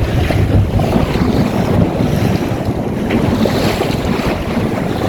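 Strong wind buffeting the microphone in a steady low rumble, with water rushing and splashing along the hull of a small open sailboat under way.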